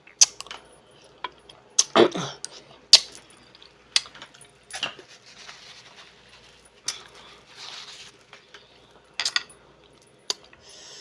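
Close-miked eating of clams and mussels: hard shells clicking and clacking, about ten sharp clicks spread through, with softer mouth noises between them.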